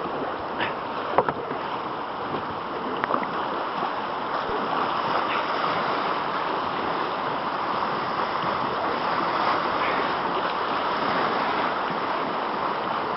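River water rushing steadily around a raft running the current, with a few light knocks in the first three seconds.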